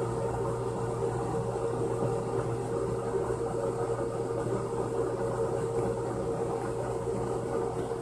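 Steady motor hum with a constant mid-pitched tone over a low drone.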